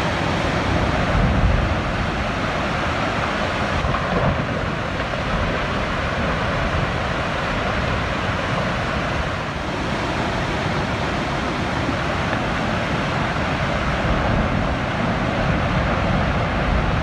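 Steady, loud rushing of an overflowing river's floodwater, with wind noise on the microphone.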